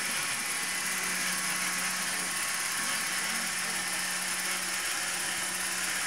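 Roomba robot vacuum running, a steady whirring hum with a constant hiss above it.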